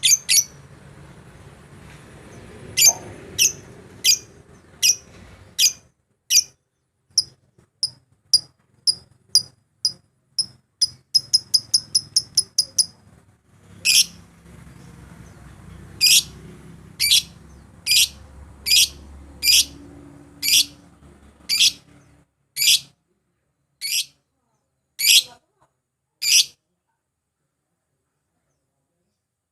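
Lovebird giving sharp, high-pitched chirps about once a second, with a quick run of shorter chirps midway, then falling silent near the end. It is a lovebird challenge call used as a lure to provoke a rival into singing.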